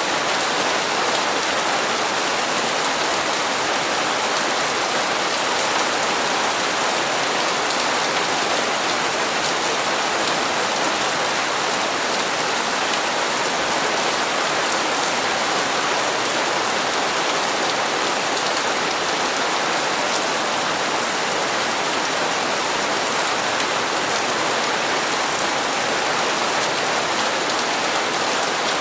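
Steady rain falling, an even, unbroken hiss of drops with no thunder or pauses.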